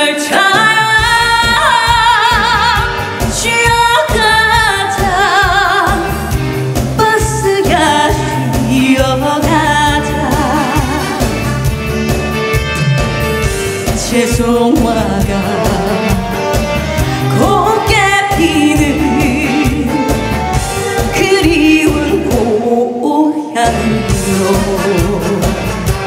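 A woman singing a Korean trot song with heavy vibrato over a full band backing with a steady beat. Near the end the beat stops for a moment.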